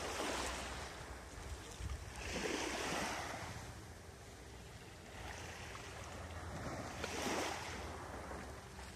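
Small waves washing up onto a pebble beach, swelling three times: at the start, about two and a half seconds in, and about seven seconds in.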